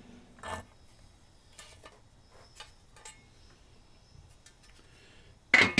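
Light metallic clicks and clinks as a bathroom exhaust fan and its sheet-metal mounting bracket are handled on a workbench while the fan is taken off the bracket. A single louder clatter comes near the end.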